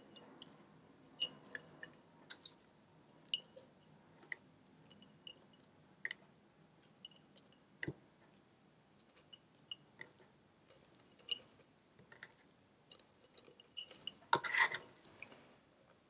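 Faint, scattered clicks and light taps of sliced onion being handled and dropped into a glass mason jar. A louder burst of handling noise comes about fourteen seconds in.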